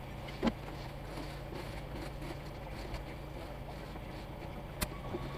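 Front-discharge concrete mixer truck's diesel engine idling steadily, heard from inside the cab. There is a short thump about half a second in and a sharp click near the end.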